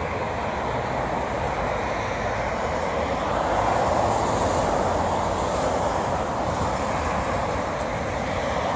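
Steady road traffic noise, swelling a little as a vehicle passes near the middle.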